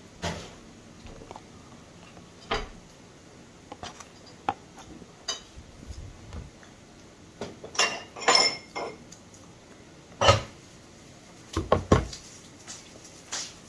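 Scattered knocks and clinks of dishes and glassware being handled. There is a cluster of ringing clinks about eight seconds in and a few heavier knocks near the end.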